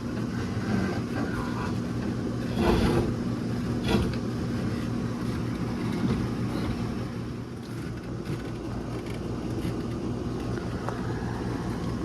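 A steady engine hum, like an idling vehicle, with a couple of knocks about three and four seconds in.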